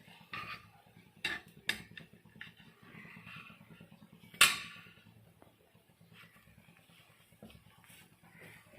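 Cooking utensil clicking against a frying pan a few times, then one sharp clank about four and a half seconds in, over a faint low hum.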